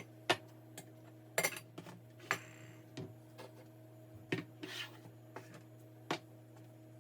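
Dishes and kitchenware being handled during a cabinet clean-out: a dozen or so irregular light clinks and knocks, with a couple of brief rubbing scrapes, over a faint steady hum.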